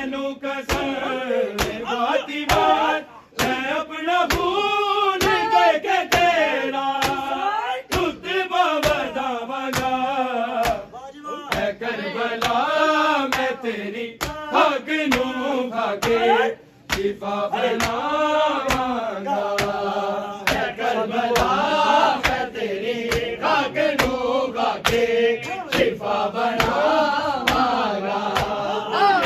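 Men's voices chanting a Punjabi noha, a slow mourning lament, over a steady rhythm of sharp strikes, the beat of matam (hands beating on chests).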